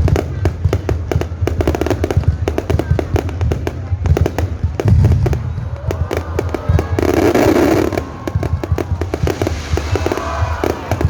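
Aerial fireworks bursting in rapid, dense succession: many sharp bangs and crackles over a continuous low rumble, with a louder hissing burst about seven seconds in.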